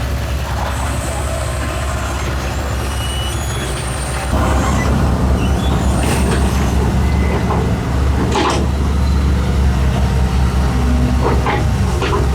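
Excavator's diesel engine running steadily, growing louder about four seconds in as it works under load. A few short sharp noises come over the drone in the second half.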